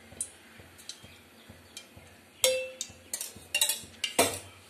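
Metal kitchenware clinking and knocking against a pan: a few scattered sharp clinks. A louder one about halfway through rings briefly, then comes a quick run of clicks and the loudest knock near the end.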